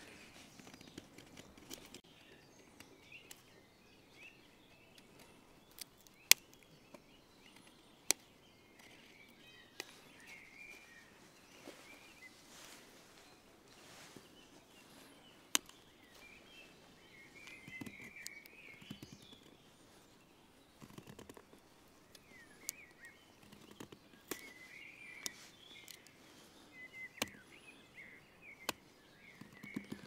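Swiss Army knife blade cutting into a wooden spoon blank: sharp irregular clicks as shavings snap off and short scraping cuts, more of them in the second half. Birds chirp faintly in the background.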